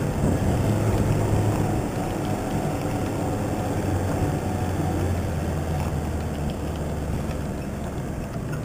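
Toyota Hilux 4x4's engine running steadily at low revs, a little louder in the first couple of seconds.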